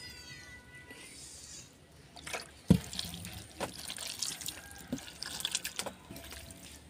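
Bare hands squeezing and kneading raw sardines in vinegar in a bowl, giving wet squelching and dripping, after a pour of vinegar at the start. This is the vinegar wash of the fish for kinilaw. A single sharp knock a little under three seconds in is the loudest sound.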